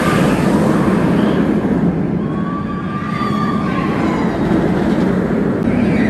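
B&M inverted roller coaster train running along its steel track, a loud steady rumble, with a long high tone that rises and falls in the middle.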